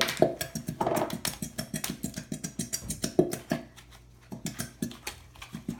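A utensil clicking and tapping against a bowl several times a second while glitter glue is stirred, pausing briefly about four seconds in.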